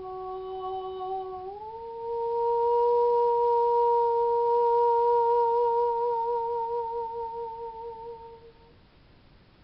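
A woman's wordless singing voice, pure and flute-like, holds one long note. About a second and a half in it slides up to a higher pitch and holds there. The vibrato widens until the note fades out near the end.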